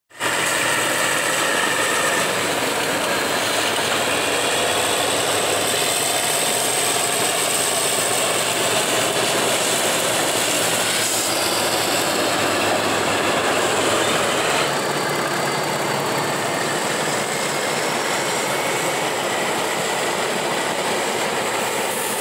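A train running on its track, a steady noise that does not let up.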